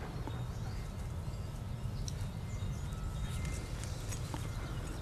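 Steady low rumble of wind on the microphone, with faint scattered ticks and rustles from dogs moving about on the grass.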